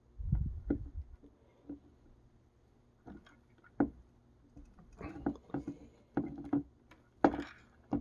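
Hands handling thin fan wires, a plastic crimp butt connector and a crimping tool: a low thump at the start, then scattered small clicks and taps, busiest in the second half, with the loudest knock near the end.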